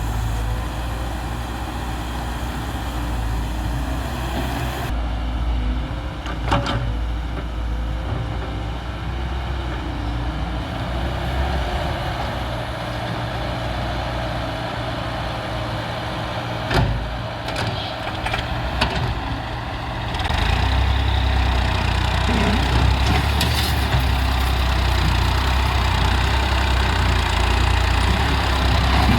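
Excavator's diesel engine running steadily, with two sharp knocks, one about a quarter of the way in and one past the middle. About two-thirds of the way in the engine gets louder, as if taking on load.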